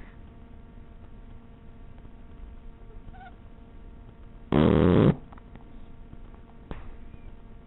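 Puppy snoring: mostly faint breathing noise, with one loud snore lasting about half a second a little past halfway through.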